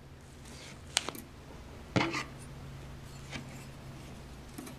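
Light clicks and small metallic knocks from handling soldering tools at a circuit board while a pad is tinned with an iron and solder wire. The two loudest come about one and two seconds in, with a few faint ticks after, over a faint steady low hum.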